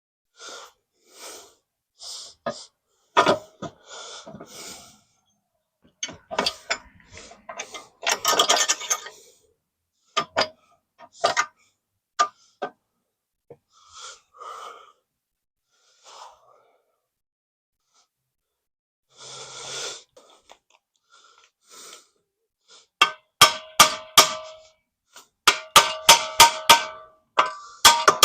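Scattered metal clanks and knocks as the steel motor cradle is worked back into the mini bike frame, then, near the end, a quick run of hammer strikes on steel, about three a second, each ringing. The cradle is a tight fit with its new steel bushings and is being persuaded into place.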